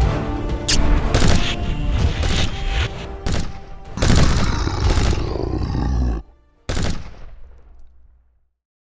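Movie gunfire sound effects, a string of shots over music. Everything cuts off suddenly about six seconds in, and one last blast follows and fades away.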